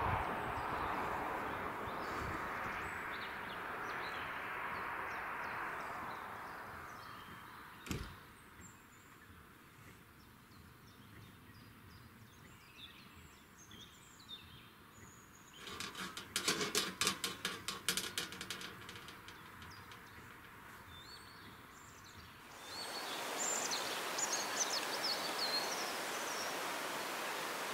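Outdoor ambience at a railroad crossing: a broad rumble fades away over the first several seconds, leaving small birds chirping. There is a single sharp click about eight seconds in and a burst of rapid clattering for a few seconds in the middle. Near the end a steady rushing noise comes in.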